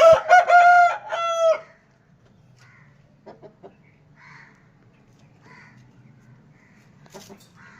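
Rooster crowing once, a loud call of about a second and a half at the start, followed by faint scattered sounds.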